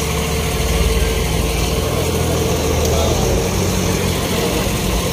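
Military cargo truck engine running steadily at low speed, a continuous low rumble.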